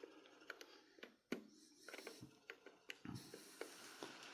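Faint, irregular small clicks and taps of model train stock being handled on the layout track, with one louder knock about a second and a half in.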